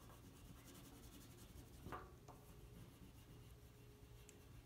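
Faint scratching of an oil pastel stick rubbing over paper as it colours in, with one slightly louder stroke about two seconds in.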